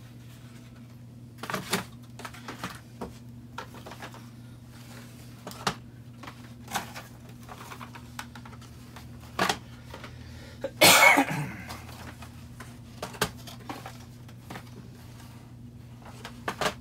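Cardboard boxes holding model train cars being handled and set down on a cloth-covered table: scattered light knocks and taps, with one louder rustle about eleven seconds in. A faint steady low hum runs underneath.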